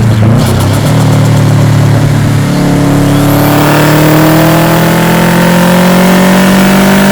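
Subaru Impreza WRX's turbocharged EJ207 flat-four engine running hard. Its note breaks up briefly near the start, then climbs steadily in pitch as the car accelerates.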